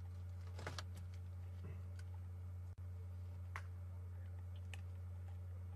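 Scattered sharp clicks and cracks, a small cluster about a second in and then single ones every second or so, from a leopard chewing on the bones of a steenbok carcass, over a steady low hum.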